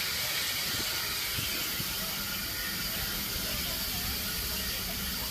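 Steady hiss of steam over a low rumble from a steam locomotive in steam, with its firebox lit, heard from the cab.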